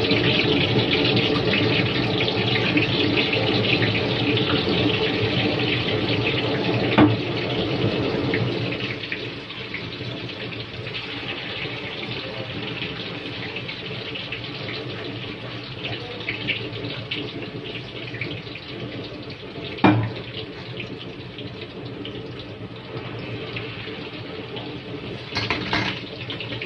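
Tofu cubes deep-frying in hot oil in a steel wok, a dense sizzling crackle. It is loudest for the first several seconds as fresh tofu goes into the oil, then settles to a softer steady sizzle about nine seconds in. Two sharp knocks sound over it, one about seven seconds in and one near twenty seconds.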